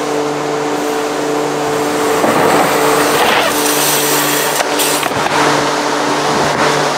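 Steady motor hum and rush of air from a bike-jump landing airbag's inflation blower running, with a few louder swells of rushing noise in the middle.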